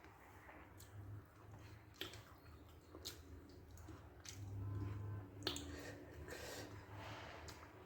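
Faint wet mouth sounds of eating rice and spicy gravy: chewing and lip smacks, with sharp clicks about once a second.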